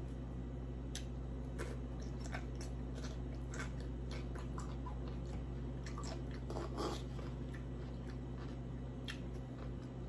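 Close-miked chewing of a poke bowl: soft wet smacks and mouth clicks scattered throughout, over a steady low hum.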